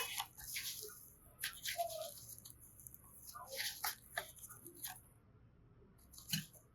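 Slime being squished and pressed by hand, giving wet sticky crackles and pops in short spells with pauses between them.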